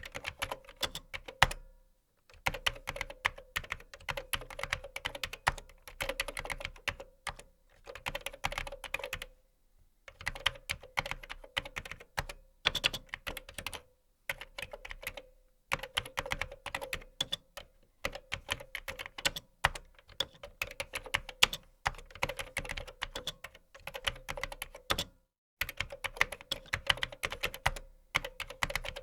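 Fast typing on a computer keyboard: rapid key clicks in runs of a few seconds, broken by brief pauses.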